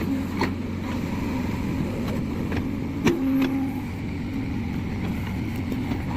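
JCB 3DX backhoe loader's diesel engine running steadily under digging work, with a few short clanks and one sharp knock about three seconds in.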